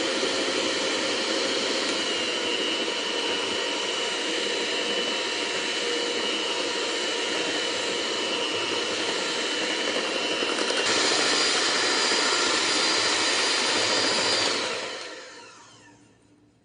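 Electric hand mixer beating cake batter in a bowl, running at a steady speed, then shifting to a higher speed about eleven seconds in. Near the end it is switched off and winds down.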